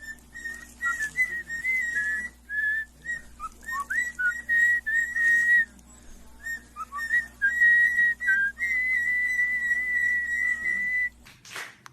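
A parrot whistling: a string of short chirps and whistled notes around one pitch, some dipping briefly lower, with several long held notes, the longest near the end.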